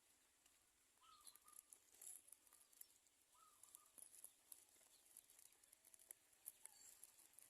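Faint, soft short chirps from small birds, several times, over light scattered ticks and rustles.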